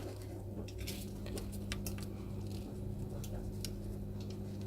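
Small, scattered clicks and light scratches of tools working on a PS4 motherboard as the HDMI port area is cleaned, over a steady low electrical hum.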